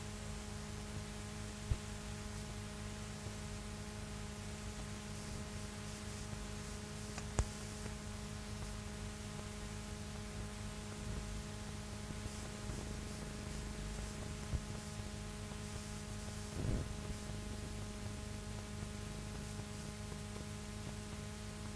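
Steady electrical mains hum with hiss on a stretch of recording with no music, broken by a few scattered faint clicks.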